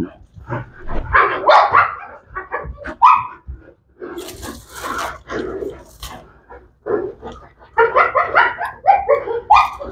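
Pit bull barking in quick runs of short barks, with a short stretch of rough noise about four seconds in.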